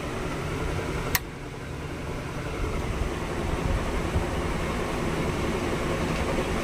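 A single sharp switch click about a second in as the AC control board is switched on, over a steady low mechanical hum that slowly grows louder.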